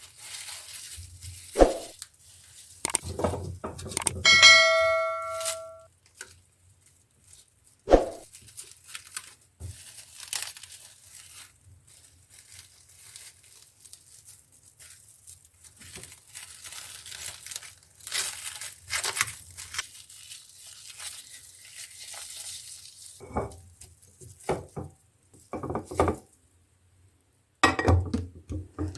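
Kitchen containers and packaging being handled: plastic crinkling and rustling, with several knocks of items set down. About four seconds in there is a brief ringing clink, like a jar or dish being struck.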